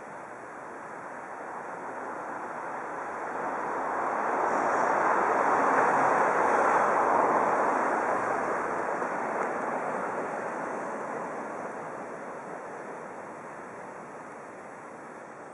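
A vehicle passing by: a smooth rushing noise that swells to a peak about six seconds in and then fades away.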